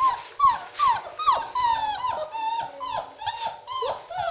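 Czechoslovakian wolfdog puppies, about four weeks old, whining and squealing while they nurse on their mother: a rapid string of high whines, most sliding down in pitch.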